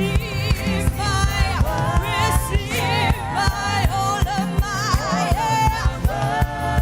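Gospel worship song: a lead voice singing with vibrato over a band with bass and drums beating steadily.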